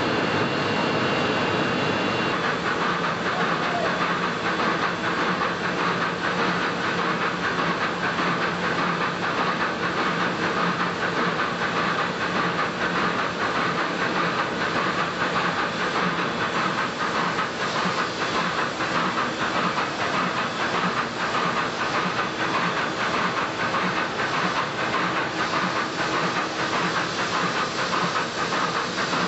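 S.S. Badger's Skinner Unaflow steam engine running at speed in its engine room: a steady hiss of steam with a fast, even clatter running through it.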